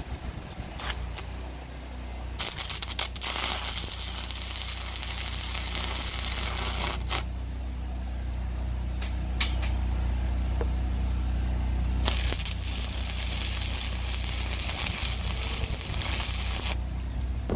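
Stick welding arc crackling and hissing on steel rod in two runs of about five seconds each, one starting a couple of seconds in and one in the second half, each starting and cutting off abruptly. A few sharp clicks come before the first run, and a steady low rumble runs underneath.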